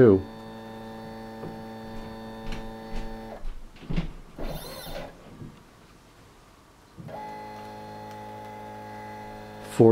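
Stepper motor drive of a Zen Toolworks 7x12 CNC machine under TinyG control, feeding an axis slowly at 42 mm per minute with a steady hum of several tones. The hum stops about three and a half seconds in. A quieter stretch with a few short scattered noises follows while the axis returns, and the steady slow-feed hum starts again about seven seconds in.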